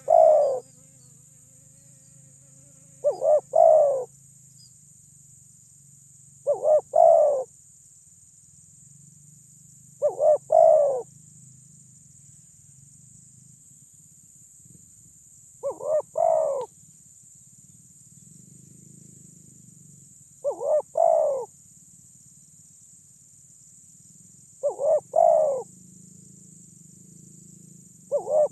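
Spotted dove cooing: a loud, short phrase of two or three notes, repeated about every three to five seconds, eight times in all. A steady high-pitched insect drone runs behind it.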